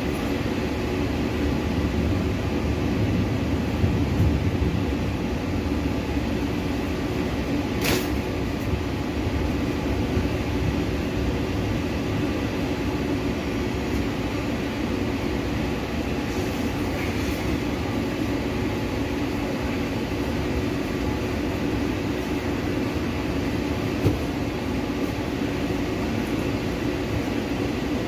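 Heavy rain and strong wind making a steady, loud rumbling noise, with a single sharp click about eight seconds in.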